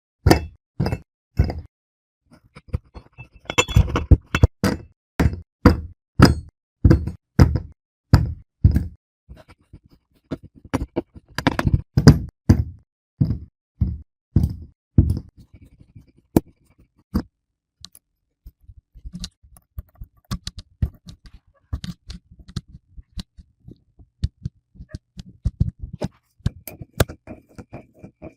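Kinetic sand being sliced, giving a run of soft knocks and thuds as the blade goes through and meets the surface beneath, about two a second. After about 16 seconds they become fainter and sparser taps.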